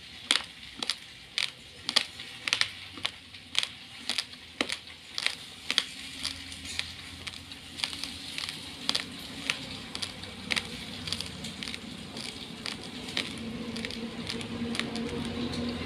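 Hard, uncooked Aadhunik rice grains being chewed, breaking in sharp crunching cracks about twice a second. A low steady hum comes in about six seconds in and grows louder toward the end.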